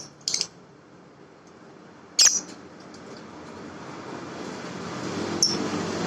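A small pet bird giving three short, high chirps spaced a few seconds apart, the second the loudest. Under them a low rumble grows steadily louder through the second half.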